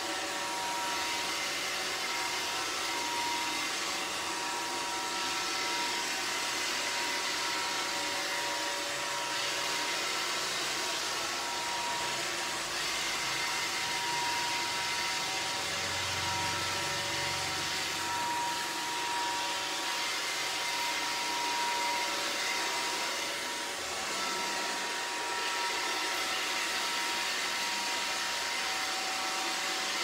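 iRobot Roomba robot vacuum running across a tiled floor: a steady motor-and-brush whir with a thin, high whine on top.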